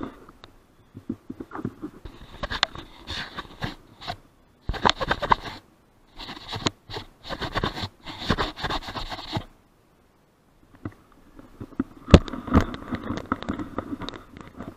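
Wind buffeting and rubbing on a helmet-mounted action camera's microphone, coming in irregular rough gusts with short silent gaps, and one sharp knock about twelve seconds in.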